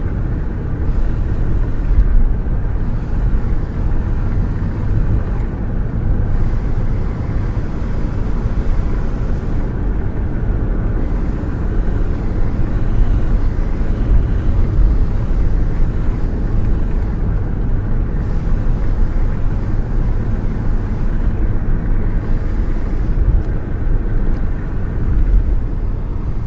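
Car running steadily, a continuous low engine and road noise with no revving or breaks.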